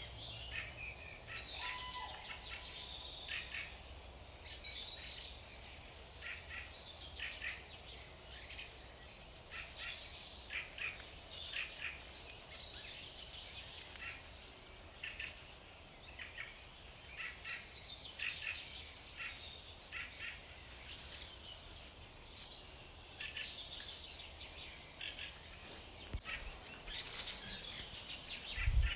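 Several wild birds chirping and trilling in quick, overlapping short calls over a steady low rumble. A single dull thump comes near the end.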